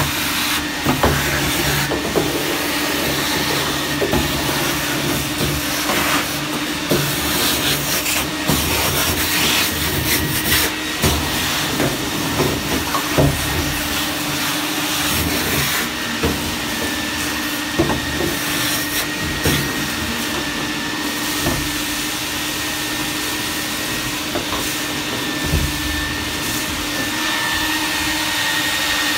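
Enkar UV-VA barrel-top wet/dry chip suction machine (220 V, 3 kW) running steadily: a loud rushing suction with a constant hum and a high whistle that grows stronger past the middle. Irregular clicks and rattles come as wet metal chips are sucked up the hose off a machine tool's bed.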